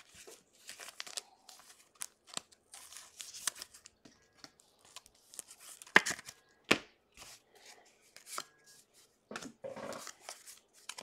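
Trading cards and their plastic sleeves being handled: soft rustling and crinkling with scattered light clicks, and two sharper snaps about six and seven seconds in.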